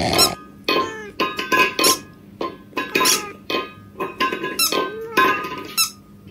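Upbeat meme soundtrack made of short squeaky, cat-like vocal sounds with bending pitch, coming about two or three a second with brief gaps.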